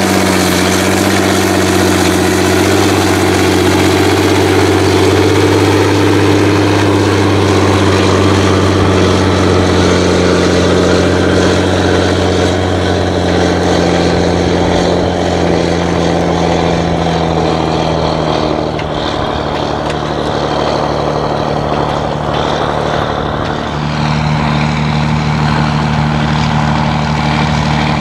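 John Deere 7920 tractor's six-cylinder diesel running loud through an open, straight exhaust pipe, pulling a land leveler under load. The engine note holds steady, sags slightly past the middle, and changes abruptly about 24 seconds in.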